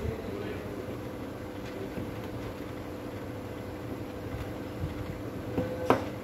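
Light handling of small metal drill parts with a hand tool: faint taps, then a sharp metallic click with a brief ring near the end, over a steady mechanical hum.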